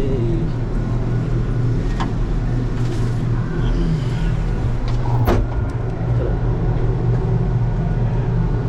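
Gondola cabin running up its cable: a steady, loud low mechanical hum, with two sharp clicks about two and five seconds in.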